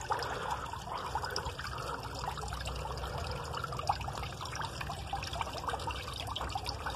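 Water trickling and splashing steadily into a garden fish pond.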